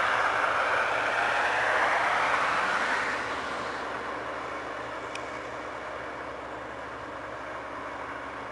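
Massey Ferguson 8570 rotary combine harvesting corn, its machinery running with a loud rushing noise that fades out about three seconds in, leaving a quieter steady engine hum.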